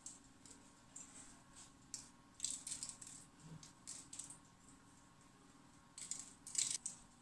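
Sesame seeds pinched from a small bowl and sprinkled by hand onto egg-washed yeast rolls: faint, short rustling patters every second or so, the loudest near the end.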